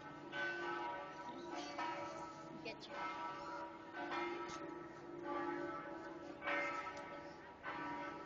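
Several church bells pealing, a new strike every second or so, each ringing on under the next.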